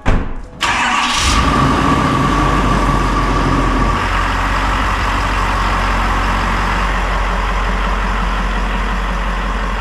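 Ford F-350 dually pickup's engine starting suddenly about half a second in. A high steady whine rides over the engine for its first few seconds, then the engine runs steadily as the truck pulls out.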